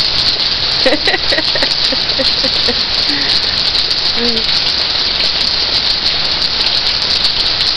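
Pouring rain falling in a steady, dense hiss. A few faint voice sounds come through about a second in and again around four seconds.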